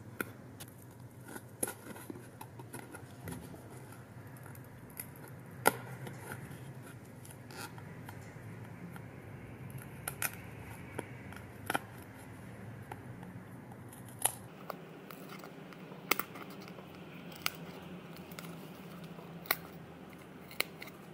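Thin die-cut cardstock clicking and snapping as small tabs and slots are pressed and poked out with fingers and a metal needle. The clicks come irregularly, about one a second, and one about six seconds in is louder than the rest.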